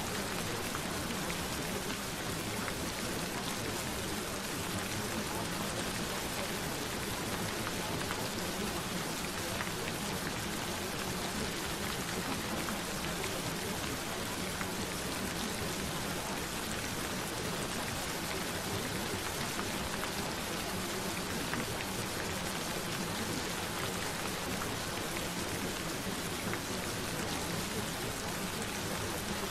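Gentle rain falling, a steady, even hiss without breaks.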